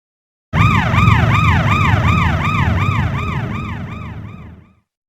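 A sound effect for a giant robot monster: a warbling, siren-like electronic tone that sweeps up and down about three times a second over a low mechanical rumble. It starts abruptly about half a second in and fades out near the end.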